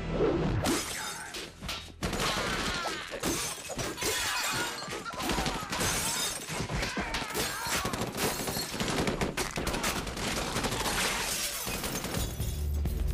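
Film gunfight sound effects: rapid pistol shots in quick succession mixed with impacts and shattering, thinner for the first two seconds and dense after that. Music comes back near the end.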